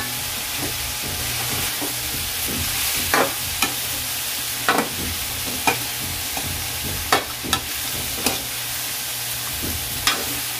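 Pork and yard-long beans sizzling in oil in a steel wok, stirred with a metal spatula that clinks against the pan at irregular intervals, about once a second.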